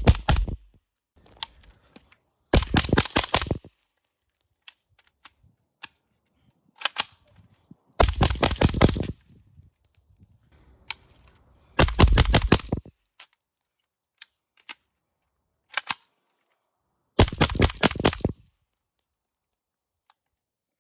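Suppressed Kalashnikov KP-9 9mm pistol firing 147-grain subsonic rounds in quick strings of about half a dozen shots, five strings with a few single shots between them.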